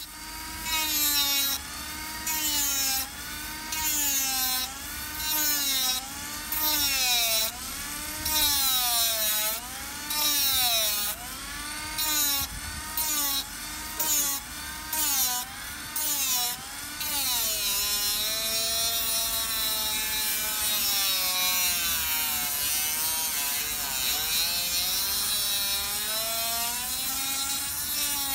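Cordless rotary tool spinning a sanding drum against the end of a straight-razor scale, shaping it. The motor whine sags and recovers in pitch as the drum bears on the scale, with short rasping bursts of sanding about once a second. For the last ten seconds or so it grinds more steadily.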